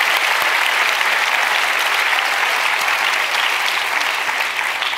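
Large audience applauding steadily, starting to die away near the end.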